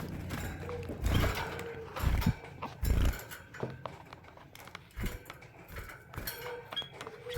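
A caged canary and white-headed munia moving about the cage: irregular light thumps and knocks, with a few faint short calls near the end.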